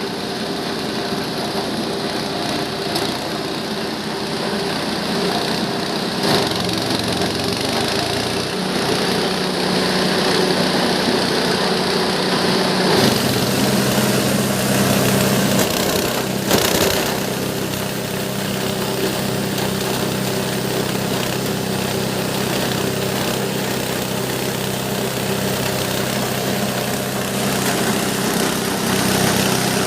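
A G-20 multifunction chopper-grinder machine running steadily on a small engine. About a third of the way through its note shifts and a harsher hiss comes in, and there is a single sharp knock a few seconds later.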